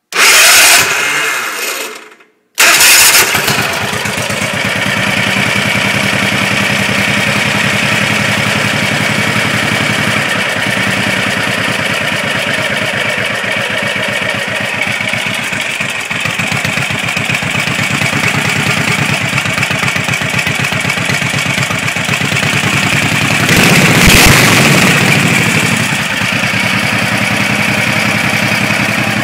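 Racing lawnmower's 20 horsepower Tecumseh V-twin engine with twin carburetors being started: a loud burst that stops dead after about two seconds, then the engine catches and runs steadily, with a brief rev near the end.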